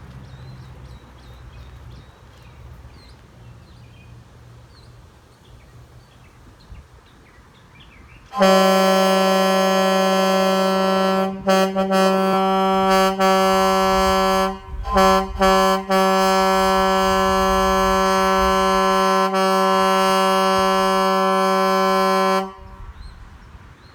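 Grover air horns on a 2000 Kenworth W900L truck blowing one long blast of about fourteen seconds at a single steady pitch, heard from some distance. The blast starts about eight seconds in after faint outdoor background, drops out briefly several times in its first half, then cuts off sharply.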